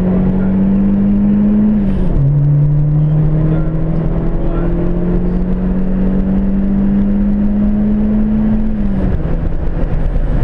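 Ford Fiesta XR2i's turbocharged 1.8 Zetec four-cylinder accelerating hard, heard from inside the cabin. Its pitch climbs slowly, then drops sharply at upshifts about two seconds in and again about nine seconds in.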